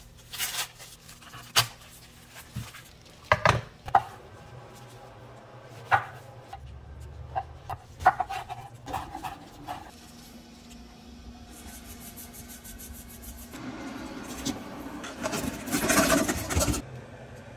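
Corn husks rustling and tearing as they are stripped from the ears, then a chef's knife knocking in sharp strokes on a wooden cutting board as garlic is chopped. Near the end, red potatoes tumble and clatter into a stainless steel stock pot, the loudest sound.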